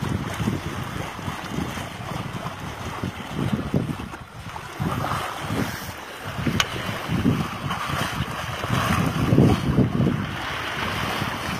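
Wind buffeting the phone's microphone over water rushing past the hull of a sailboat under way, in uneven gusts. A single sharp click a little past halfway.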